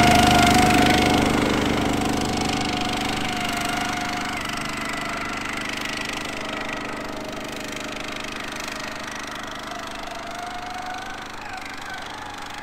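The 13.5 hp four-stroke Briggs & Stratton engine of a Tinger Dog Pro motorized towing dog runs as the machine pulls away, with a whine that wavers over the engine note. The sound fades steadily as it drives off into the distance.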